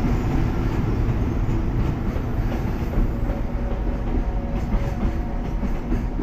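A freight train's container wagons rolling past at speed behind an EF210 electric locomotive, a steady rumble of wheels on rail with clacks as the wheels cross rail joints.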